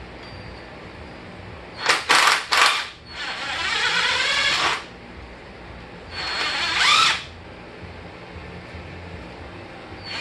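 Power drill driving a long extension, spinning out the surge tank mounting bolts. It gives three quick blips about two seconds in, then a run of about a second and a half, and another run of about a second near seven seconds in, its motor pitch rising and falling.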